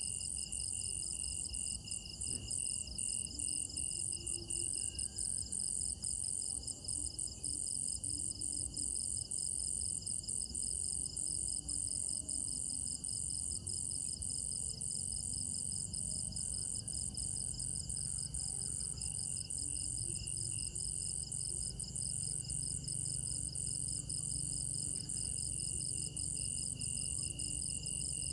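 Chorus of night crickets trilling continuously. Several high-pitched trills overlap: a loud steady high one, a rapidly pulsing lower one, and a third that cuts in and out.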